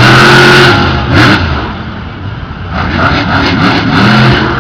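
Monster truck engine revving hard in repeated surges, its pitch rising and falling, with a short sharp noisy burst about a second in.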